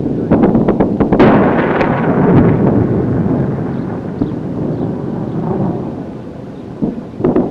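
A rapid run of sharp blasts about half a second in, merging into a long rolling rumble that slowly dies away. A few more sharp cracks come near the end.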